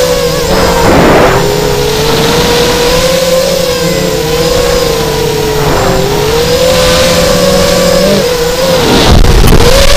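Whine of a mini H quadcopter's four RTFQ 2208 2300 kV brushless motors spinning 6-inch three-blade props, its pitch wavering up and down with the throttle. There are two bursts of rushing noise, about a second in and near the end.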